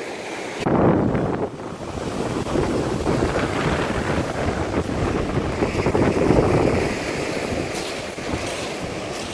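Heavy Lake Superior surf washing onto the rocky shore, with strong wind buffeting the microphone. A surge comes in suddenly a little under a second in and another builds around the middle.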